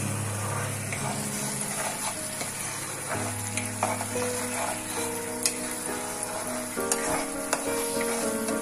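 Thick red chilli paste sizzling and bubbling in hot oil in a non-stick pan, a plastic spatula scraping and stirring through it with scattered clicks, as the paste is sautéed. Soft background music with held chords plays under it.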